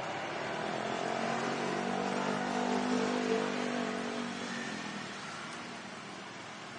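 A motor vehicle passing by: its engine note swells to a peak about halfway through and then fades away.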